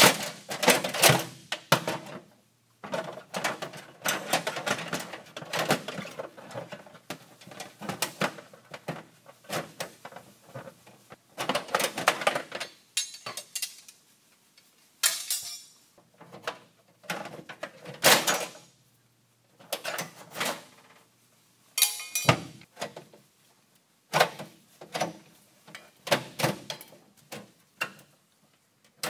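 Hand tools and metal parts inside an old Montgomery Ward Signature Deluxe freezer clinking, rattling and scraping in bursts of rapid clicks, with short quiet pauses between them.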